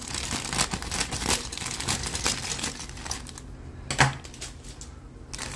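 White plastic model-kit parts on their sprues clicking and rattling inside a crinkling plastic bag as it is handled, with one sharper knock about four seconds in as the bag is set down.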